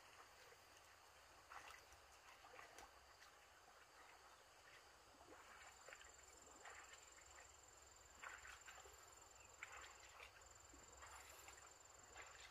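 Near silence: faint soft footsteps in wet grass and mud, about one a second. A thin high steady tone joins about halfway through.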